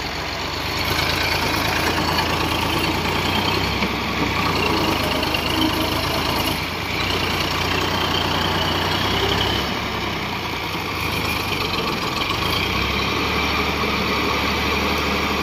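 Farm tractor's diesel engine running steadily under load while hauling a loaded trolley through deep mud, its note dipping slightly twice.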